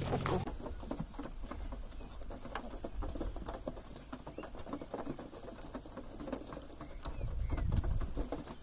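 Muscovy ducks and chickens pecking grain from a feeder: a rapid, irregular patter of beak taps on the feed and trough, with soft bird calls mixed in, busiest near the end.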